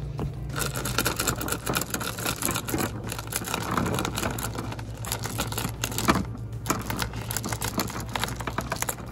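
A boot sole rolling a freshly spliced three-strand rope back and forth on rough concrete to work the splice round and tight: irregular gritty scraping and scuffing, with one sharper scuff about six seconds in. A steady low hum runs underneath.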